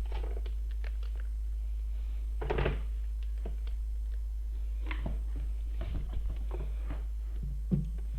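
Small clicks and knocks of a phone circuit board and tools being handled on a repair bench, over a steady low hum. The loudest knock comes about two and a half seconds in.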